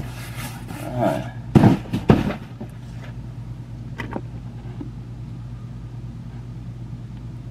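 Handling noise: some rustling, then two sharp thumps about a second and a half and two seconds in and a light click around four seconds, as hands move things close to the microphone. A steady low hum runs underneath.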